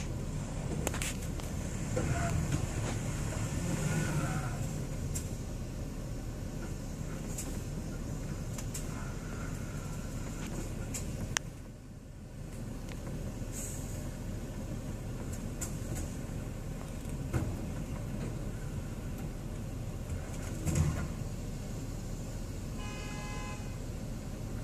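Steady low vehicle engine hum heard from inside a car, swelling a little near the start, with a few sharp knocks and a short pitched tone near the end.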